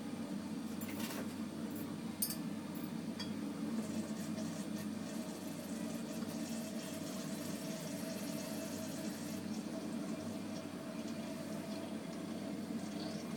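Steady low rushing of the burner heating water in the lower glass globe of a siphon coffee maker, with a few sharp glassy clicks in the first couple of seconds as the upper chamber is fitted.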